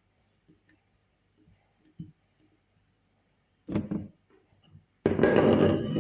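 Light clicks and taps of kitchen utensils, a short clatter just before the four-second mark, then a loud rough noise lasting about a second near the end, as ingredients are handled into a blender.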